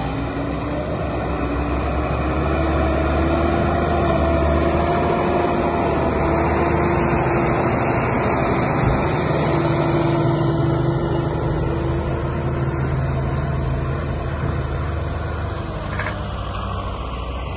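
Large Deutz-Fahr tractor's diesel engine pulling a loaded silage wagon close past, a steady drone that grows louder towards the middle and then fades as it moves on.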